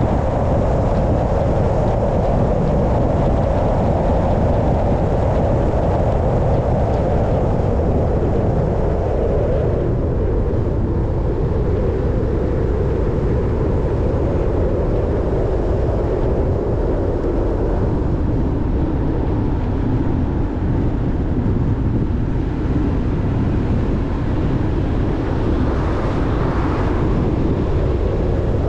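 A car driving: steady engine and road noise, its pitch sinking a little about ten seconds in and rising again near the end.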